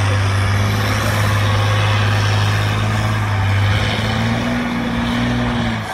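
ROSS VIZA trial truck's engine running hard under load as the truck pulls through a mud pit and up its bank, a steady low drone. The pitch rises a little about four seconds in, then the sound drops away suddenly near the end.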